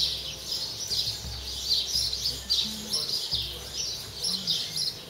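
Birds chirping: many short, high chirps in quick succession, with a low rumble underneath.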